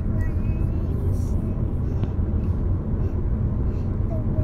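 Steady low road and engine rumble of a moving car, heard inside the cabin.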